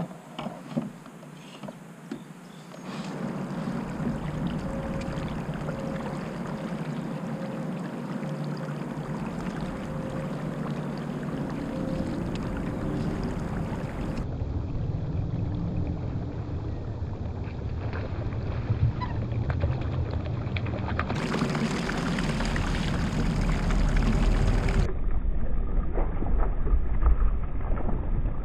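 Kayak under way on a river: a steady rush of water along the hull with some wind noise and a faint steady whine. The sound changes abruptly a few times where the footage is cut, with a heavier low rumble near the end.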